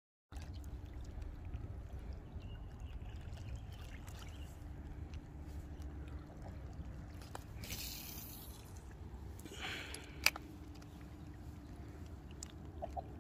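Small waves lapping at a lake shore, with wind rumbling on the microphone and a faint steady hum underneath. There are two short hissing rustles past the middle and a single sharp click about ten seconds in.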